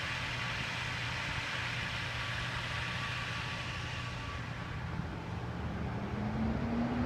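A motor vehicle's engine running, with a steady low hum over general outdoor noise. About five seconds in, a low drone starts and slowly rises in pitch as the sound grows louder.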